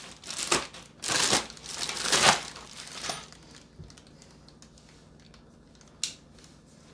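Crinkly material crinkling and tearing in several short bursts over the first three seconds, then a single sharp click about six seconds in.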